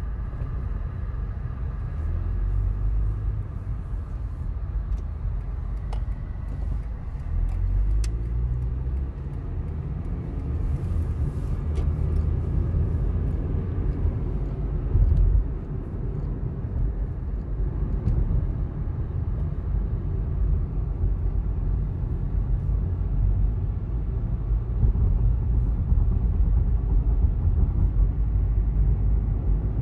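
Low, steady engine and road rumble heard from inside a car's cabin. About seven seconds in, the engine note rises as the car pulls away from a stop and speeds up, then settles into a steady drone at driving speed.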